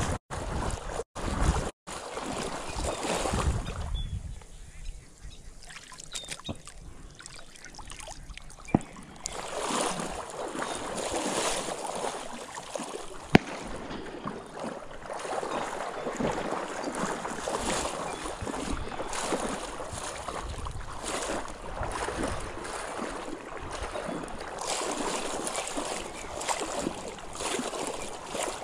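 Water sloshing and splashing in a steady rhythm of strides as a person wades through a shallow marsh pool. Two sharp clicks come through, one about nine seconds in and one about thirteen seconds in.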